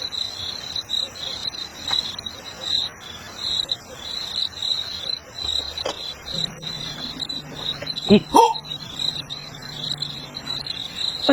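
Crickets trilling steadily in a high, pulsing chorus, with a brief pitched call about eight seconds in.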